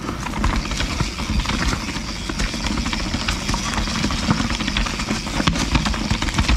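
Canyon Spectral CF mountain bike ridden down a rough dirt trail: a steady rushing noise of tyres and air on the mount, broken by frequent knocks and rattles as the bike goes over bumps.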